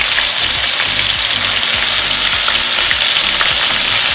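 Shrimp frying in hot oil in a wok: a steady sizzle with scattered small pops and crackles.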